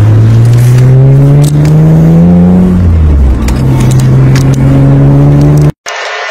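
Car engine running hard, its pitch climbing over about two seconds, dropping, then holding steady; loud and distorted, with a few clicks, and it cuts off abruptly near the end.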